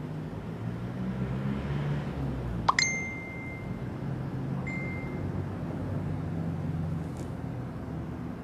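A small bell struck once, giving a single high, clear ring that lasts about a second. A fainter ring at the same pitch follows about two seconds later, over a low steady hum.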